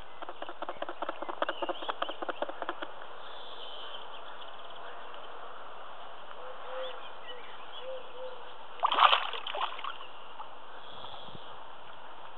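Spawning carp splashing and thrashing in shallow reedy water: a quick run of many small splashes over the first few seconds, then a louder single burst about nine seconds in.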